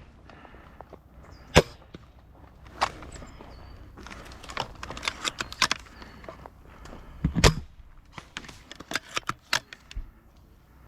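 A series of irregular sharp clicks and knocks, with a heavy thump about seven and a half seconds in and a quick run of clicks near the end.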